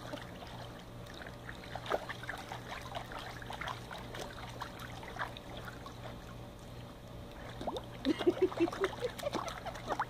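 Pool water lapping and splashing in small, scattered bursts as feet kick and dangle in an above-ground pool, over a steady low hum.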